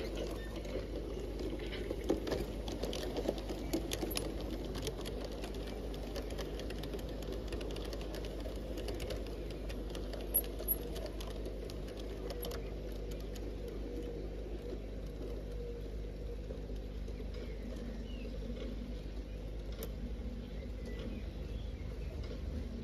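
LGB G-scale model train running past on garden track: wheels click rapidly over the rail joints and turnouts over a steady drone of the electric motor. The clicking is busiest in the first few seconds and again around ten to thirteen seconds in, with two sharper clicks near ten seconds.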